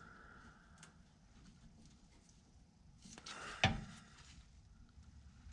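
Long-handled socket wrench being worked on the nut of a steering bell crank: mostly quiet, then a short scraping rattle about three seconds in that ends in one sharp metallic clack.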